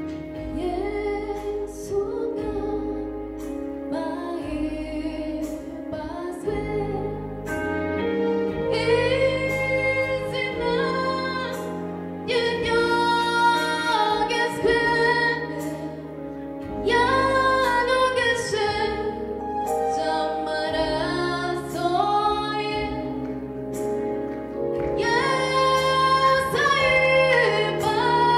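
Rwandan gospel song: a woman singing in phrases of a few seconds each over an instrumental backing with sustained bass notes.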